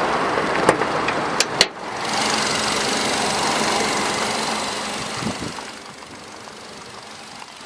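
Nissan Tiida's 1.6-litre inline-four engine running steadily, with a few light clicks in the first second or two; the sound drops to a quieter steady idle about six seconds in.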